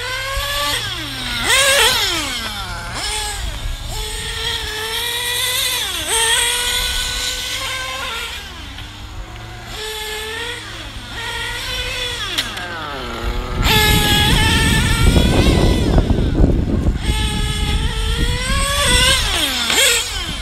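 Several REDS GT 5T two-stroke nitro engines in 1/8-scale XRAY GTX8.2 GT cars running laps, high-pitched and revving up and down, their pitches rising and falling and overlapping as the cars pass. About two-thirds of the way through, a loud low rushing noise joins them.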